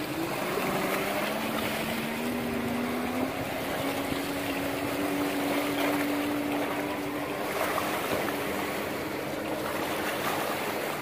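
Boat underway: the 165 hp Chevrolet six-cylinder engine of a MerCruiser sterndrive runs with a steady drone, over a continuous rush of water and wind.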